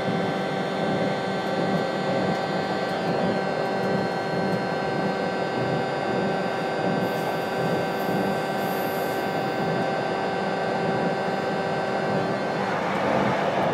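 Inside the passenger saloon of an NMBS/SNCB AM80 'Break' electric multiple unit: its ACEC electrical equipment gives a steady hum and whine of several fixed pitches over a low rumble. Near the end the whine drops out and a broader rushing noise swells.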